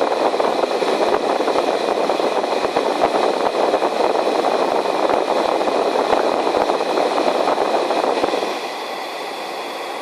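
Car heater blower fan running on a high setting to demist steamed-up windows: a loud, steady rush of air with a faint whine. It is turned down about eight and a half seconds in.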